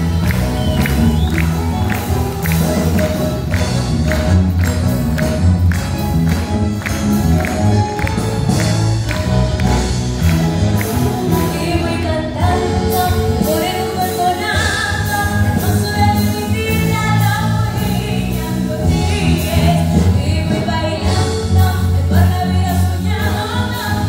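Live symphony orchestra with a large string section playing a song over a steady percussion beat, with a woman singing lead into a microphone, her voice most prominent in the second half.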